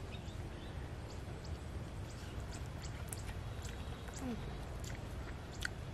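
Faint eating sounds, small scattered clicks and smacks of someone tasting grilled rat meat, over a steady low background rumble.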